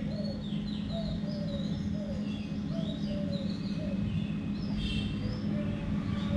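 Several birds chirping and calling in quick, repeated short notes over a steady low hum.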